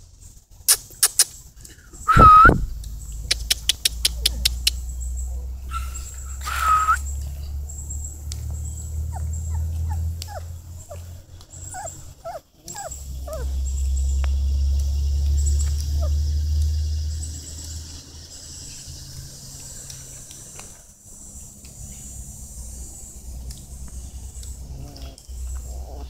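American Pit Bull Terrier puppies whimpering: a loud high cry about two seconds in, another near seven seconds, and a run of short rising squeaks around ten seconds. A quick run of clicks comes between the first two cries, and a low rumble runs under much of it.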